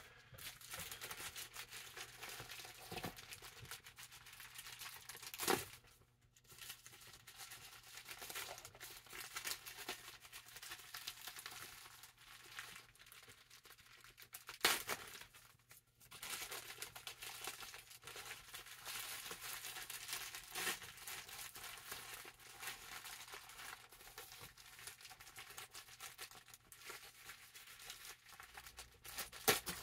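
Packaging being torn open and handled: continuous crinkling and rustling with tearing, broken by a few sharp clicks.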